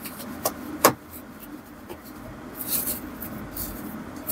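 Paper kitchen towels rustling and crinkling as hands press and pat raw salmon steaks dry on a stainless steel plate, with a couple of light knocks in the first second.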